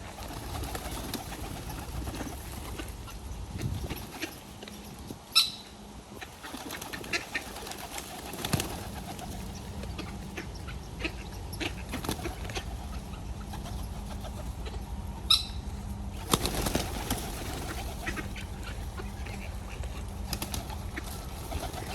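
Pigeons fluttering and flapping their wings around scattered feed, with small scattered taps. Two short, sharp squeaks come about five and fifteen seconds in.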